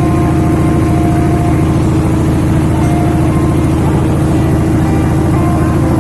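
Engine running steadily at an even speed, close and loud, with a constant low hum.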